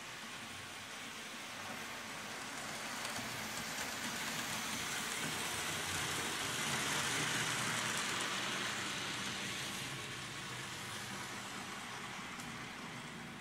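Märklin model freight train running past on the layout's track: a rolling rattle of wheels and motor that grows louder, is loudest about seven seconds in, then fades away.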